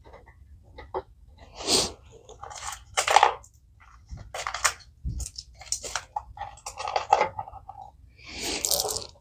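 Irregular metallic clinks, clicks and scrapes of hands working on a clutch pressure plate and flywheel, fitting the steel pressure-plate bolts by hand. A longer rustling scrape comes near the end.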